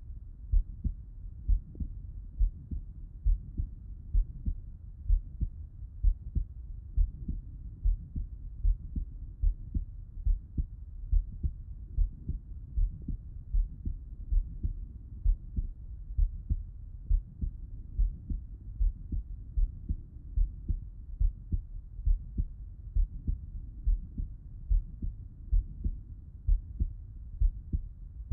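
A man's heartbeat heard through a Littmann stethoscope with him lying on his left side: a steady, even run of dull paired lub-dub thumps.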